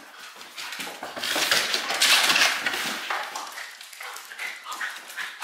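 A Belgian Malinois's claws clattering and skittering on a hardwood floor as it scrambles and runs, loudest from about one to three seconds in, then fainter.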